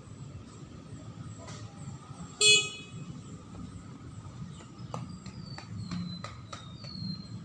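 A single short, loud beep about two and a half seconds in, over a steady low background rumble. A few faint clicks and short falling chirps follow in the second half.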